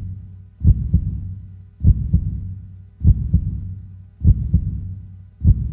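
Heartbeat sound effect: a slow, regular double thump, lub-dub, about every 1.2 seconds, five beats in all, over a low steady hum.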